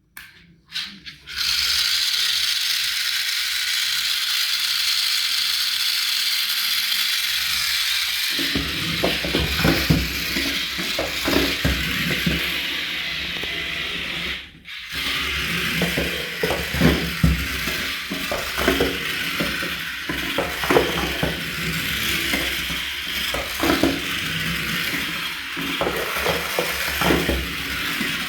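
Toy vehicle's plastic gears and wheels running: a steady whir for about the first eight seconds, then a dense clicking rattle over a low rumble, broken by a short gap about halfway through.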